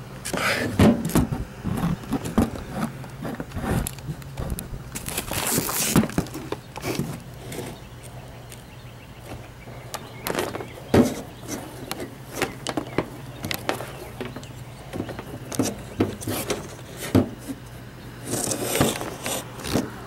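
Handling noise: irregular clicks, knocks and scrapes as a multimeter and its test leads are set up on a condenser's top panel, with rustling swishes from the camera being moved. A low steady hum runs underneath.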